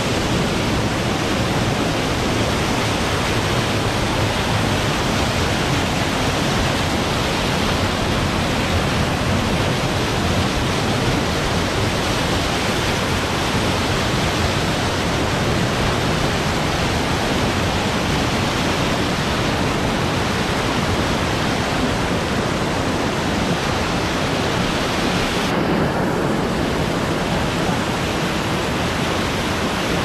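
Waterfall in a mountain stream running high after typhoon rain: a loud, steady rush of falling white water at close range. About four seconds before the end the hiss turns slightly duller.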